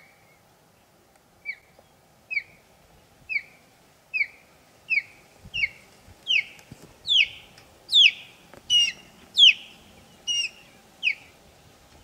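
Osprey calling: a series of short, high, down-slurred whistled chirps, a little under a second apart, building in loudness toward the end.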